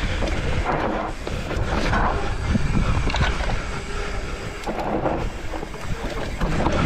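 Mountain bike riding fast down a dirt trail: tyres rolling over the ground and the bike rattling and knocking over bumps, with wind rumbling on the microphone.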